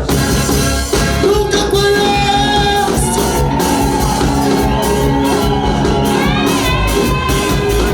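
Praise music with singing over a steady beat, with held sung or played notes and a rising vocal line about six seconds in.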